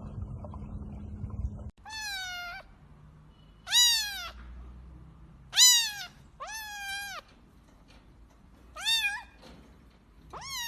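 Domestic cat meowing six times, each meow rising and then falling in pitch, a second or two apart. The first couple of seconds hold a low rushing noise that cuts off suddenly before the meows begin.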